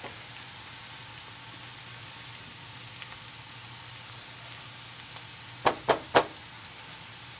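Peas and carrots sizzling and bubbling steadily in a frying pan on a low flame. About two-thirds of the way through come three sharp knocks in quick succession, louder than the sizzle.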